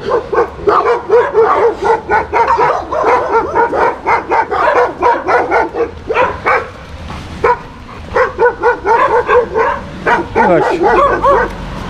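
Dogs barking fast and without a break, about three sharp, fairly high-pitched barks a second. The barking eases off for a moment about six seconds in, then picks up again.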